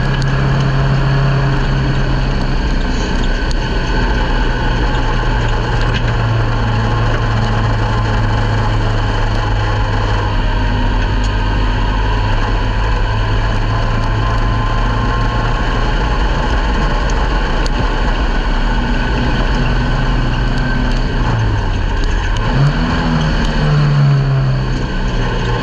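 Ministock speedway car's engine running at steady revs under way, heard from inside the cockpit. About 21 seconds in, the revs drop briefly and then climb back up.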